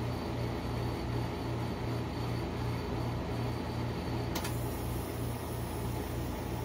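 Steady low hum of the rolled ice cream machine's cold plate refrigeration unit, pulsing regularly, with a faint click about four seconds in.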